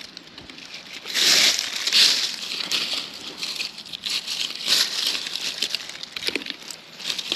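Irregular rustling and crackling with many small clicks, loudest in stretches about a second in and again near the five-second mark.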